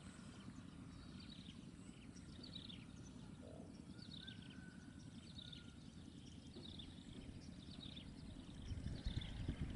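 Birds calling: short, high whistles that fall in pitch, repeated about once a second, over a low rumble. A few heavier low thumps come near the end.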